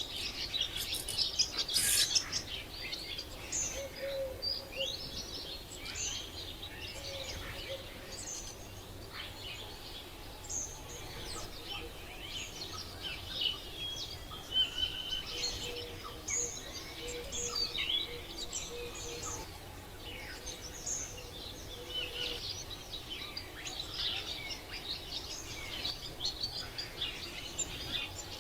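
A chorus of many birds chirping and calling, with short high chirps and quick sweeps overlapping continuously over a soft background hiss.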